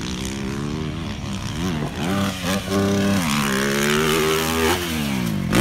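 Dirt bike engine revving on and off the throttle: its pitch dips and climbs a few times, holds steady for a while, then drops near the end.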